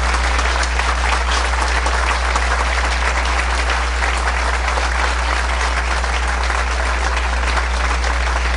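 Audience applauding: a dense, steady mass of hand claps that runs on without a break.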